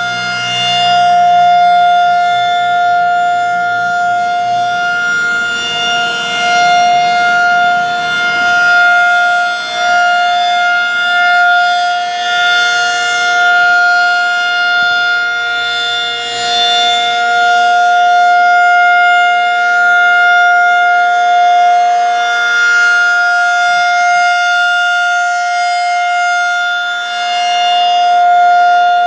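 Federal Signal 2001 rotating electromechanical tornado siren sounding a steady single-tone Full Alert. The pitch holds constant while the loudness swells and fades every few seconds as the horn turns.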